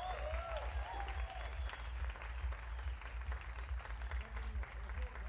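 Audience applauding, with cheering voices and whoops that die away about two seconds in.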